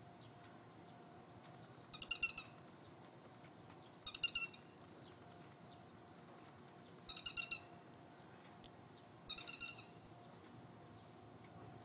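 Grey-headed lapwing calling: four short bursts of rapid, shrill notes, about two to three seconds apart.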